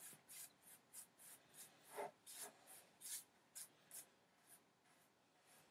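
Large mop brush swished back and forth over wet paint, a faint brushing of about two or three strokes a second that thins out near the end, softening the colour so no hard lines remain.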